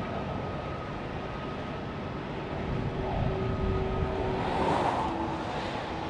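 Freight train's autorack cars rolling past: a steady rumble of steel wheels on rail, with thin steady whining tones over it, growing louder from about halfway.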